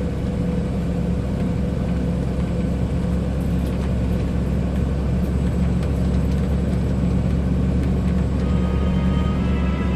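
Scania 124L 420 truck's 12-litre straight-six diesel running at a steady cruise, a constant low drone. Music comes in faintly near the end.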